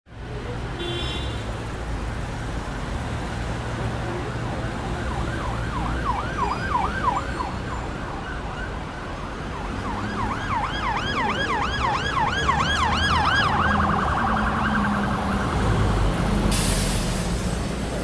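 A siren sweeping quickly up and down in a yelp, about three or four sweeps a second, in two spells and then briefly in a faster warble, over a steady low traffic rumble. A short hiss comes near the end.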